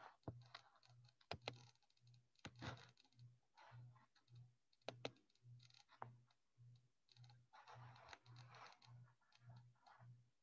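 Faint, scattered computer mouse clicks and keyboard taps, irregularly spaced, over near silence with a faint low hum pulsing at a steady rate.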